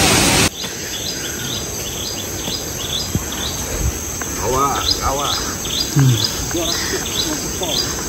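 A loud rushing noise cuts off abruptly about half a second in. Then comes forest ambience: short high falling chirps repeated about twice a second over a steady high insect drone.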